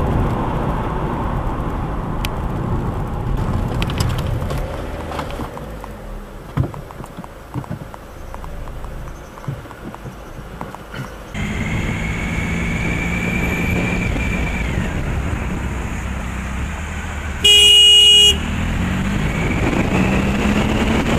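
Steady road and engine noise heard from inside a moving car, then a car horn sounds once for just under a second near the end, the loudest sound.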